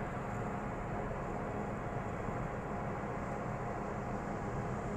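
Steady road and engine noise inside a moving car's cabin at highway speed, an even rush with a low hum.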